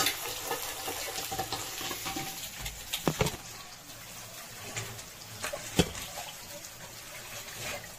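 Sliced onions and green chillies sizzling in hot oil in a kadhai, a steady hiss with a few sharp knocks around the middle.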